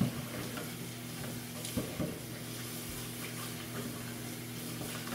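A steady low electrical hum over a faint hiss, with a couple of soft knocks about two seconds in.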